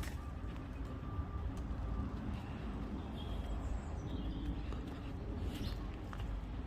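Steady low outdoor rumble with a few faint bird chirps about three to four seconds in.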